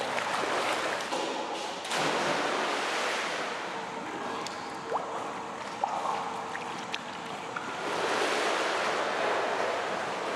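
Pool water splashing and sloshing as a dog paddles through it, swelling louder a couple of times, with a few light clicks.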